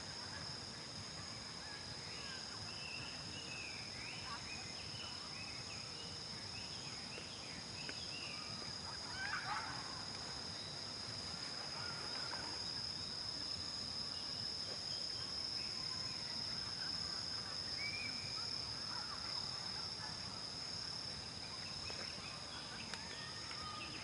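Outdoor field ambience: a steady, high-pitched insect chorus, with scattered short chirps and calls from other animals over it.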